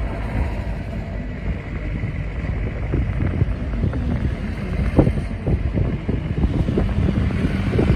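A vehicle rolling along: steady low rumble of road and engine noise with wind buffeting the microphone, and a few light knocks, the clearest about five seconds in.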